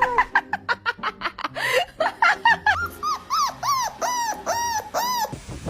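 A dog giving a rapid string of high-pitched yelps over background music. Each yelp rises and falls in pitch, and they come about three a second before cutting off abruptly near the end.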